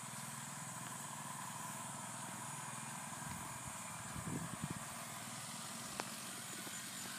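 A small engine running steadily with a low, even hum, joined by a few light knocks about four seconds in.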